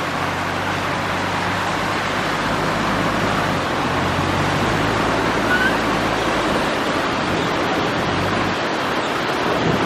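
Surf breaking and wind on the microphone, with a Toyota Land Cruiser's engine running low and steady underneath as the 4WD crawls over rocks. The engine's low note drops away near the end.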